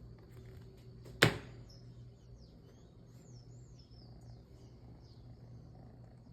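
A single sharp click about a second in, followed by a series of faint, high bird chirps over a low steady hum.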